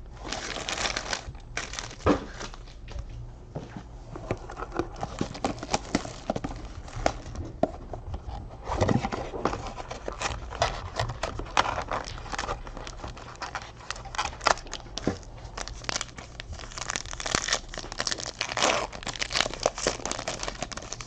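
A foil trading-card pack wrapper being torn open and crinkled by hand, with dense irregular crackling and rustling.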